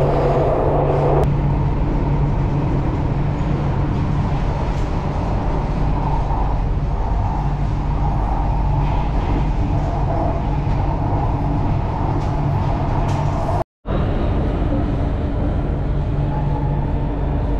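Chennai Metro electric train running, heard from inside the passenger carriage: a steady rumble with a low hum. The sound cuts out for an instant about three-quarters of the way through.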